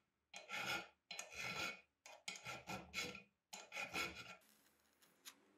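Flat hand file rasping across the pin end in an antique Husqvarna meat grinder's crank arm, clamped in a vise, in a series of separate strokes with short pauses between them, stopping about four and a half seconds in.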